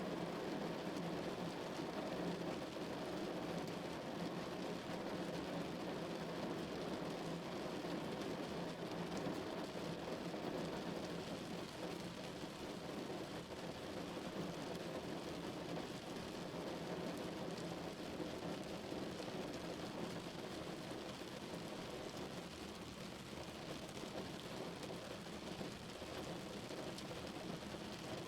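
Steady rain falling on a car's roof and windows, heard from inside the car.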